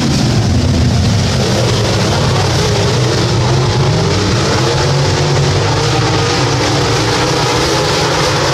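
Dirt-track modified race cars running hard around the track, their engines making a loud, steady, overlapping noise. A car passes close right at the start, its pitch falling as it goes by, and then the pack's engines blend into one continuous sound.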